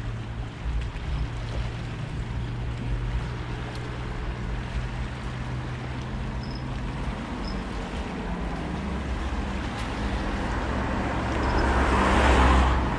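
Seaside ambience of wind and small waves on a pebble shore, under a steady low engine hum that fades about seven seconds in. A louder rushing swell comes near the end.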